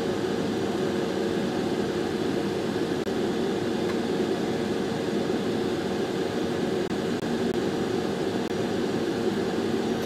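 Hot air rework station blowing steadily on the circuit board: a constant rushing air noise with a steady hum. The air is heating the 12VHPWR connector's pins so that leaded solder flows through the holes.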